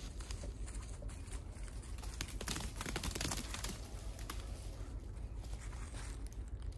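Rustling and crunching of dry fallen leaves and twigs underfoot and by hand, with a denser stretch of crackling from about two and a half to three and a half seconds in.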